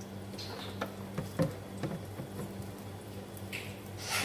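Scattered light clicks and taps of kitchen handling over a steady low hum, with a short rush of noise near the end.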